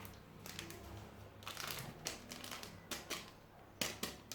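Small packets of baking powder crinkling and rustling as they are torn open and emptied, in several short, irregular bursts.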